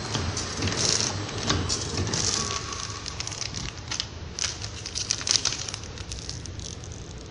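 Sealed plastic pouches crinkling and crackling with many small clicks as they pile up from a vertical packing machine. It is louder for the first couple of seconds, then quieter.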